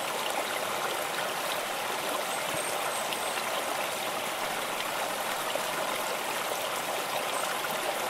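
Steady rushing and trickling of flowing water, like a stream running over rocks, with an even, unchanging level.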